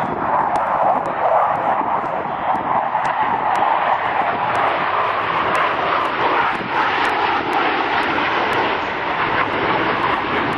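Steady jet noise from a pair of Blue Angels F/A-18 Hornets, twin-engine fighters, flying a low pass in formation.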